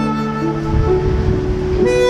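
Instrumental introduction of a song from a backing track: a melody of held notes over a sustained low bass.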